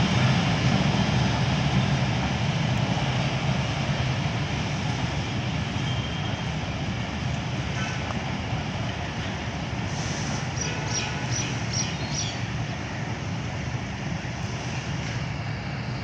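Passenger train running away over the tracks, its rumble fading steadily as it recedes. About two-thirds through, a short row of five or six high chirps.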